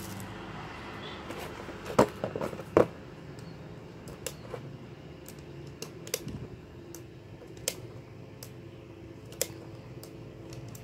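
Clicks and clacks from handling the box magazine of a spring-powered airsoft pump-action shotgun: two sharp clacks with a few smaller ones about two seconds in, then scattered light clicks.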